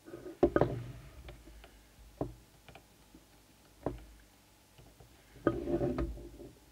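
Handling noise from an opened CB radio set: a few separate knocks and clicks, with brief rubbing, as the set is moved and turned in the hands.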